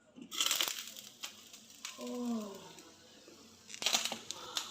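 Rustling and clatter of a pan of freshly popped popcorn being handled, with a short falling vocal sound about two seconds in and a few clicks near the end.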